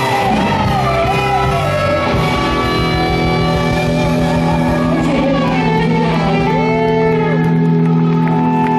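Live rock band playing, electric guitar to the fore over bass, drums and keyboards, with held chords and a bent guitar note a little after halfway.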